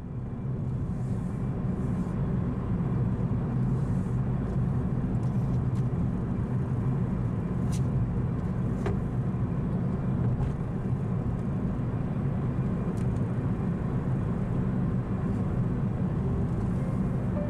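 A steady low rumble, with a few faint clicks along the way.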